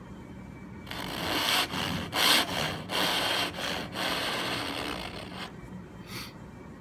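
Japanese pull saw sawing down into the end of a wooden board: a run of quick sawing strokes starting about a second in and tailing off after about five seconds, then one short stroke near the end.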